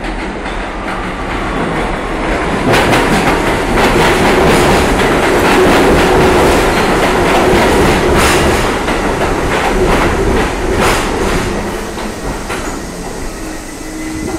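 New York City Subway R62A 7 train pulling into the station. It grows louder as it comes in, then the cars rush past close by with the wheels clacking over rail joints. It eases off as the train slows, with a thin squeal near the end.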